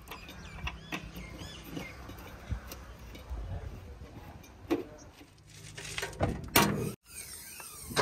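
Wing nut being screwed down onto the rubber cap of a backhoe loader's air-intake precleaner: small clicks, rubbing squeaks and knocks of the cap being handled, with a louder clatter near the end.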